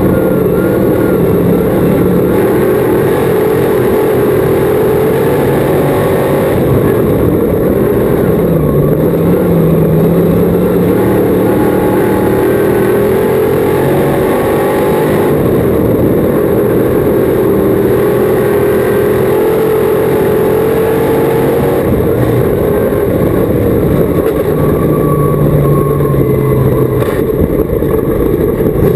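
Crate modified dirt-track race car's V8 engine heard from inside the cockpit, running hard at racing speed. Its pitch rises and falls in waves as the throttle comes off and back on around the turns.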